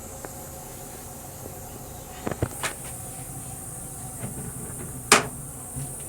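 Steady running noise of a Metro-North M3 electric railcar, heard from inside the car's small restroom, with a high hiss. A few short knocks about two seconds in and one loud sharp click about five seconds in.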